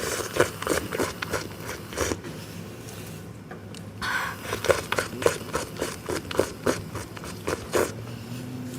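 Runs of short, sharp clicks and crunches at an irregular pace, with a quieter stretch about two to four seconds in.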